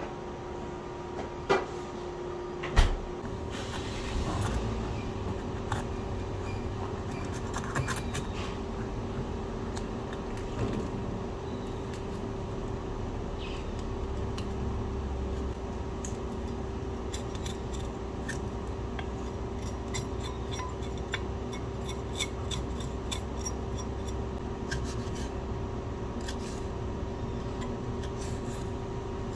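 Kitchen knife slicing a small red pepper on a wooden log-slice chopping board, heard as many light cuts and taps of the blade on the wood in the later part. Two sharp knocks come about one and a half and three seconds in, over a steady low hum.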